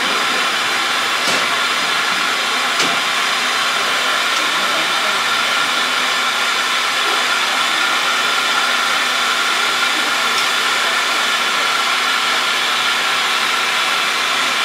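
Steady hiss of steam escaping from the standing C61-20 steam locomotive, with two faint clicks in the first three seconds.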